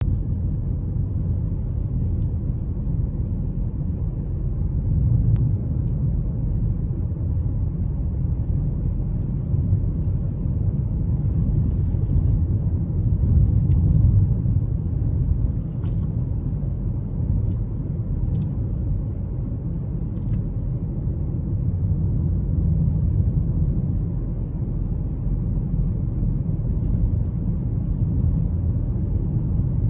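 Steady low rumble of a Suzuki Kizashi on compacted snow, heard from inside the cabin: tyre and road noise from its Michelin X-Ice 3+ studless winter tyres. A few faint ticks come through now and then.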